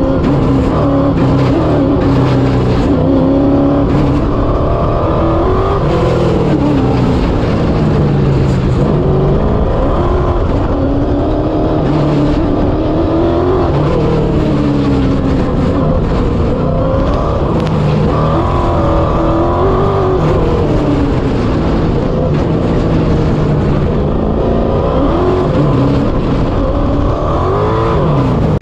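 Race car engine on an autocross run, revving up and falling back again and again as the car accelerates and brakes through the course.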